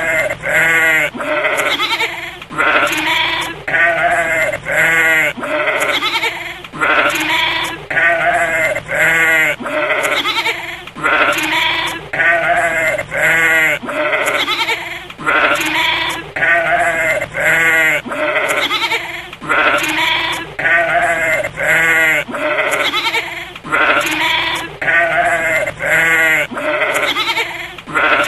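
Goat bleating over and over, a long run of short bleats about one a second, many with a quavering tremble.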